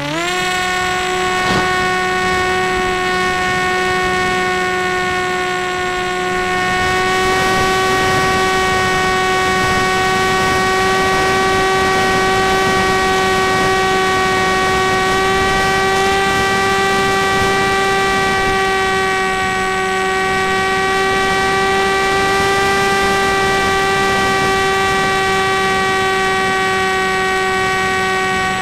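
Mini Arrow model plane's motor and propeller heard close up from the onboard camera, a high steady whine. The pitch climbs as the motor spools up at the very start, then holds level at full throttle with small shifts in pitch.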